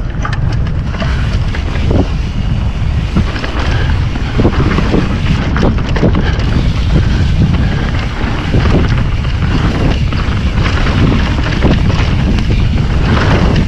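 Wind buffeting the microphone over the rumble of Schwalbe tyres on a dirt trail during a mountain-bike descent, with many short knocks and clatters as the bike hits bumps.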